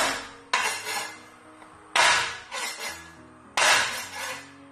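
Flat of a Chinese cleaver smacked down onto garlic cloves on a bamboo cutting board to smash them: about five sharp whacks, each dying away quickly. Soft background music plays under them.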